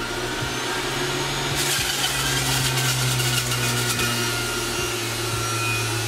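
Breville Juice Fountain Elite centrifugal juicer running with a steady motor hum, on its low speed, while romaine lettuce is shredded on the spinning cutting disc. The hum grows louder over the first second, and a rasping whir of leaves being shredded comes in from about a second and a half to four seconds in.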